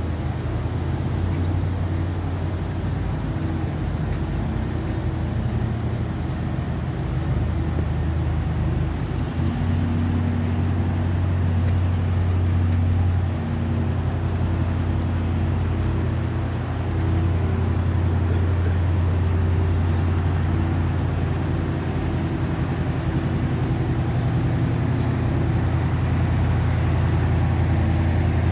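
An engine running steadily with a low, even hum, dipping slightly a couple of times around the middle.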